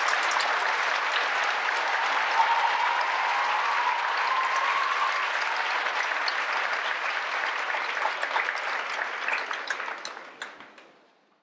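Audience applauding steadily, the clapping thinning out and dying away near the end.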